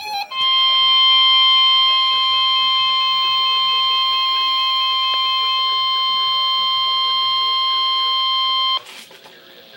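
Emergency Alert System warning alarm tone: a single steady pitch of about 1050 Hz, the NOAA Weather Radio warning tone, held for about eight and a half seconds and then cutting off suddenly near the end.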